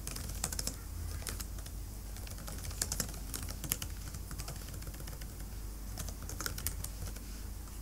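Computer keyboard being typed on, irregular keystrokes coming in short bursts with pauses between them.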